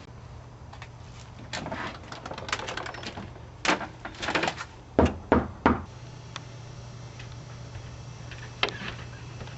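Three sharp knocks on a door about five seconds in, after a few seconds of lighter clatter and handling noise, over a steady low hum.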